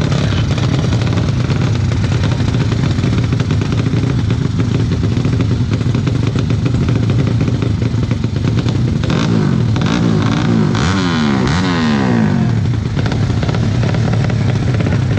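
Motorcycle engine idling, blipped and revved a few times around nine to twelve seconds in, the pitch rising and falling with each rev.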